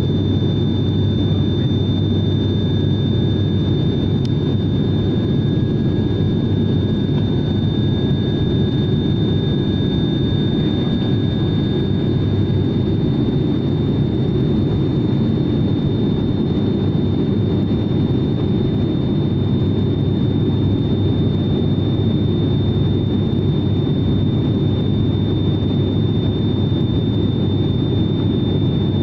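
Cabin noise of a twin-engine turboprop airliner in flight: a steady low drone from the engines and propellers, with a constant thin high whine over it.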